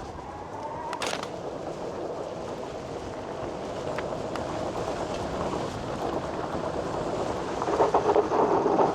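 Electric mountain bike rolling downhill on a dirt trail: a steady rumble of tyres and rattling frame that grows louder and rougher near the end, with a sharp click about a second in.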